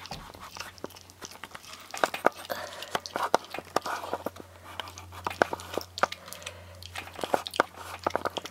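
A raccoon biting and crunching on a chicken leg: irregular sharp crunches, sparse at first and coming thick and fast from about two seconds in, over a faint steady low hum.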